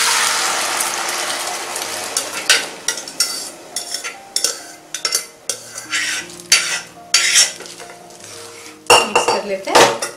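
Boiled white peas and their cooking water hitting hot oil and cumin in a pot: a loud sizzle that fades over the first couple of seconds. Then irregular knocks and clinks as the metal pouring vessel and a spatula strike the pot while the peas are tipped in and stirred, the loudest near the end.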